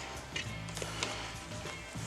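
Background music, with a few faint clicks.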